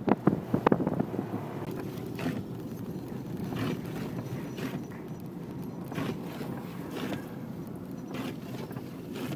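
Blizzard wind rumbling steadily on the microphone, with a few sharp knocks in the first second.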